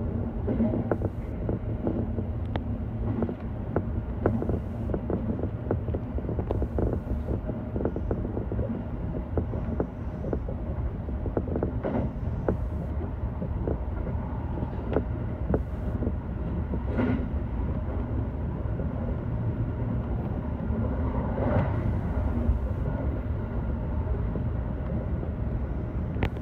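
JR West 321 series electric train running, heard from inside at the front of the car: a steady low rumble under many sharp wheel clicks over the rails, with a few brief louder creaks about halfway through and near the end.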